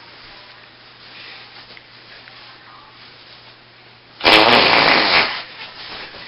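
Faint background hiss with a steady low hum, then about four seconds in a sudden loud fart lasting about a second that tails off.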